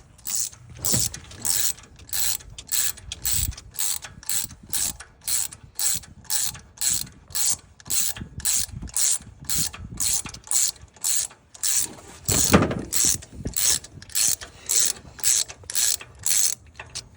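Socket ratchet wrench clicking in steady back-and-forth strokes, about two a second, as a fastener on the lawnmower is turned. A louder knock comes about two-thirds of the way through.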